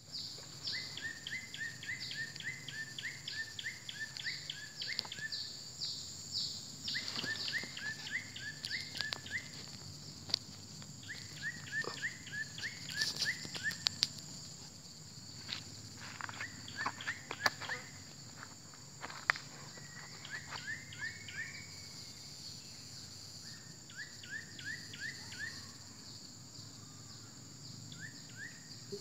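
Steady high insect drone with a bird calling in quick runs of short notes, about two seconds per run and repeated every few seconds. Scattered knocks and rubbing from the camera being handled in the middle.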